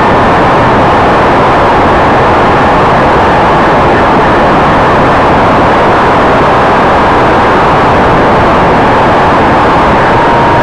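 Twin-propeller radio-controlled model of a Canadair CL-415 in flight, heard from a camera on its wing: a loud, steady rush of propeller and wind noise with a faint steady whine from the motors.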